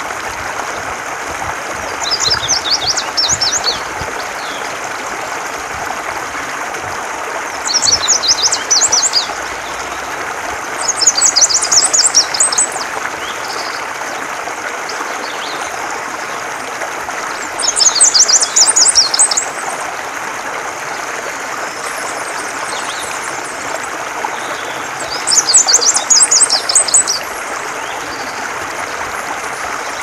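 Indigo bunting singing: five high, quick songs of about two seconds each, spaced several seconds apart, over the steady rush of running water.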